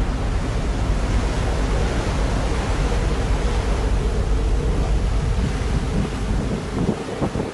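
Wind buffeting the microphone over the rush of choppy sea, a heavy steady rumble with a faint constant hum beneath; the rumble drops briefly near the end.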